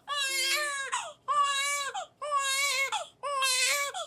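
Newborn baby crying loudly: four wails in a row, each about a second long and held at a steady pitch, with a quick catch of breath between them.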